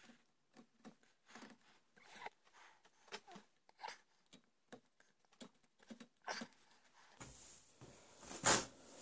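Hand chisel and carving knife paring thin shavings from a wooden gunstock while cutting a recess: a run of short, quiet scraping cuts, several a second, with one louder cut near the end.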